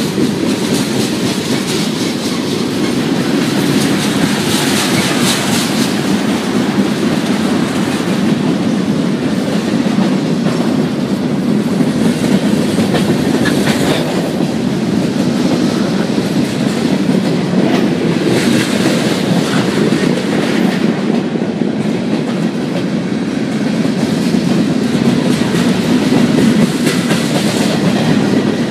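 A mixed freight train's cars rolling past close by: a steady rumble of steel wheels on rail, with scattered clicks and clanks.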